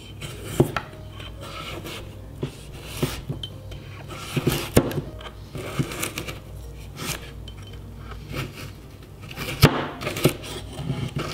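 A broad cleaver-style knife cutting a carrot on a wooden chopping board: irregular knocks of the blade on the board as the carrot is sliced into strips and then diced.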